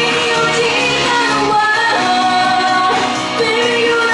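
A woman singing a pop song live into a handheld microphone over loud pop backing music, her held notes rising and falling.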